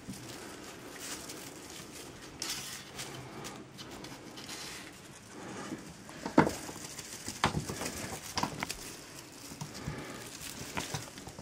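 Kittens' paws pattering and scrambling on a laminate floor and rug as they chase a feather wand toy, with scattered light knocks and thumps, the loudest about six seconds in.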